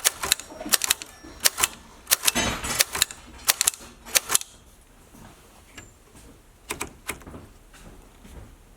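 Manual typewriter being typed on: keys struck in quick, irregular clusters of sharp clacks, with a denser rattling run in the middle. After about four seconds the typing thins to a couple of single strikes.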